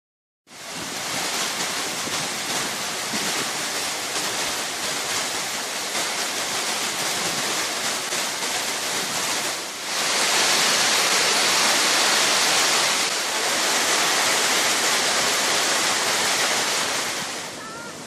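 Heavy rain pouring down in a steady hiss, louder from about ten seconds in. Just before the end it gives way to the lower, steady rush of a swollen river.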